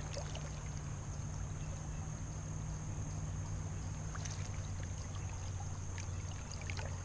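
Steady flow of creek water, with a few faint ticks about four and six seconds in.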